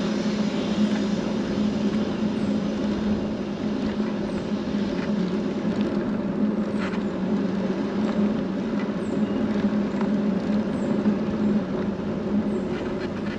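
Vehicle driving slowly, heard from inside the cabin: a steady engine and road hum with a low drone.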